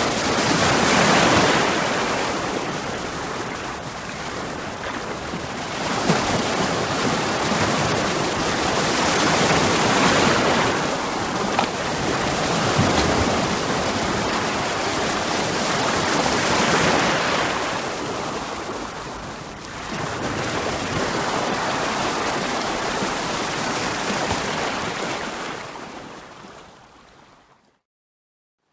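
Sea waves breaking against rocks: a rushing wash that swells and ebbs every few seconds, fading out to silence near the end.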